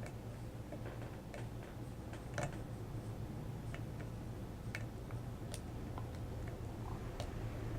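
Lock pick working the pins inside a Master Lock padlock's SOC keyway, giving faint, irregular little clicks and ticks.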